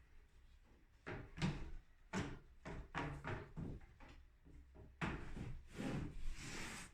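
A wooden window being worked open and shut: a run of wooden knocks, then a longer rubbing, sliding sound of wood on wood lasting nearly two seconds near the end.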